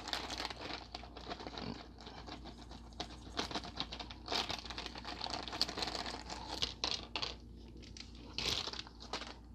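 Plastic packaging crinkling and rustling, with irregular small clicks and taps, as action-figure accessories are taken out of it.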